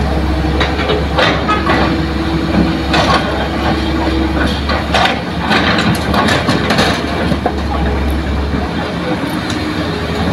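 Hitachi hydraulic excavator's diesel engine running steadily while it loads soil into a dump truck, with repeated knocks and clatter as the bucket works and dirt and rocks drop into the truck's steel bed.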